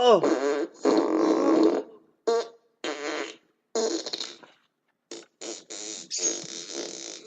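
A run of short, buzzy, fart-like noises with brief silent gaps between them. The first slides down in pitch, and a longer one fills the last second or so.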